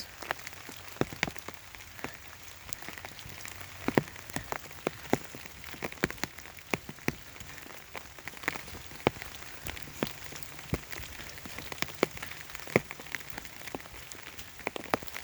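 Raindrops pattering on an umbrella overhead: a steady hiss of rain with many irregular, sharp drop taps.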